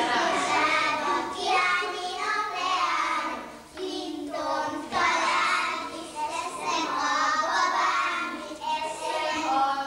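Group of young children singing a song together in unison, in phrases, with a short break a little before the middle.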